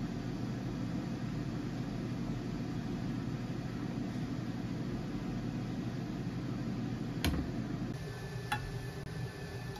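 Steady low mechanical hum. Two sharp knocks come about seven and eight and a half seconds in, and a faint steady high whine starts just before the second.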